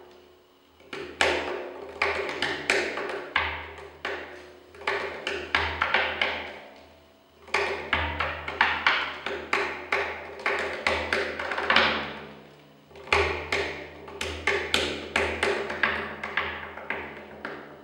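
Hand-played frame drum: quick flurries of finger taps and slaps, with a deep low note under many strokes. The runs are broken by two short pauses.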